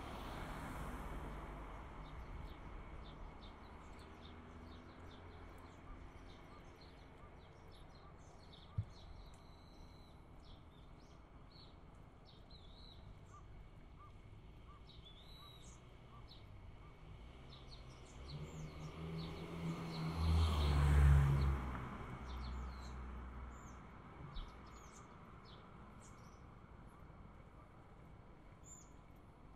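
Small birds chirping at intervals over a steady street hum, with a car driving past about two-thirds of the way through, the loudest sound, and another passing at the start.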